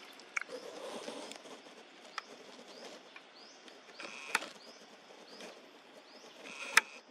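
Outdoor ambience: a small bird or insect gives a short chirp about twice a second, with a few sharp clicks, the loudest near the end, and a brief rustle about a second in.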